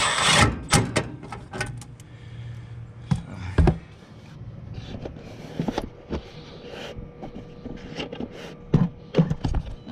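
Hand tools and metal parts of a packaged HVAC unit being handled during reassembly: an irregular string of clicks, knocks and rattles over a faint steady hum.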